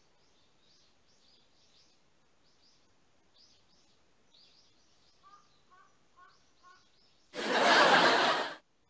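Faint birds chirping repeatedly in the background, then a loud burst of hissing noise lasting about a second near the end.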